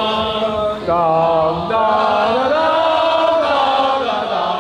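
Voices singing a slow, chant-like melody together, holding long notes that glide gently up and down.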